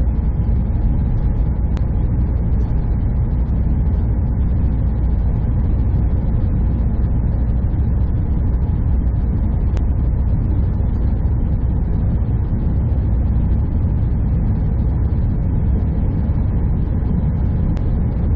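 Steady low drone of a semi truck's engine and tyre noise, heard from inside the cab while driving.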